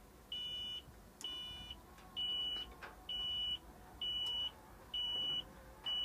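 Cab warning buzzer of a 4YZB-4 corn combine harvester beeping a single high tone, about half a second on and half off, roughly once a second.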